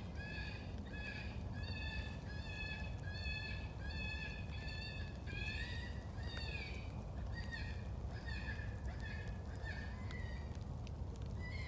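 FoxPro electronic game call playing a high-pitched prey distress cry: short squealing calls repeating about twice a second, getting more varied and wavering after about five seconds. A steady low rumble runs underneath.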